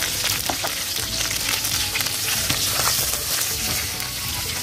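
Quail pieces frying in a black wok in the fat rendered from the birds: a steady sizzle with many small crackles.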